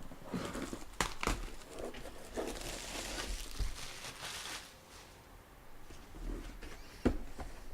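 Packaging being handled and opened: crinkling and rustling, with a few sharp clicks and knocks, the loudest near the end.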